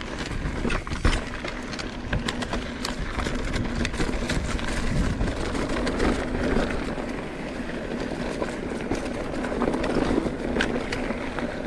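Mountain bike riding over a dry dirt trail strewn with leaves and twigs: continuous tyre and wind noise with frequent small rattles and knocks from the bike over the rough ground.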